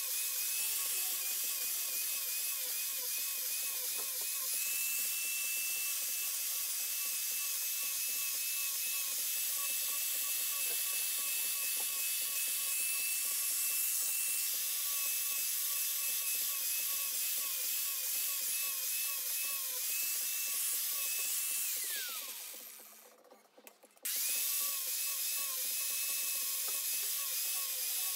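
Corded angle grinder running at speed with a shaping disc cutting grooves into the edge of a cherry board, its whine dipping in pitch over and over as the disc bites into the wood. About three quarters of the way through the grinder winds down and goes quiet. About two seconds later it is whining at full speed again.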